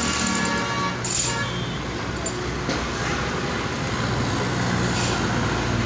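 Road traffic going past: the steady hum of vehicle engines and tyre noise from motor vehicles.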